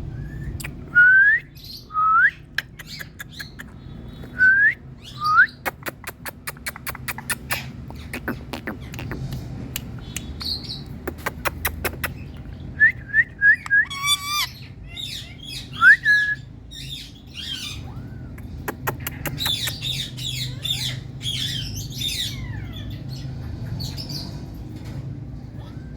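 Indian ringneck parrot calling: loud, short, upswept shrieks in the first few seconds, then a run of sharp clicks, a quick string of notes, one more rising call and softer chattering near the end. A steady low hum runs underneath.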